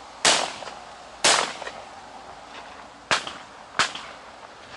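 Four shotgun shots: two about a second apart, then two more close together later on, the later pair a little quieter. Each is a sharp bang with a brief ringing tail.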